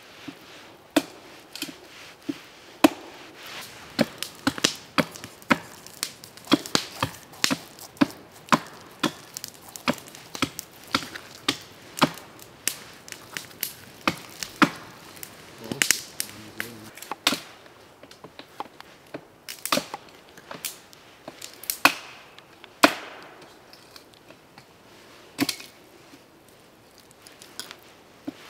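Knife scraping scales off a gilthead sea bream laid on a log: a string of short, sharp scraping clicks, about one or two a second, thinning out in the second half.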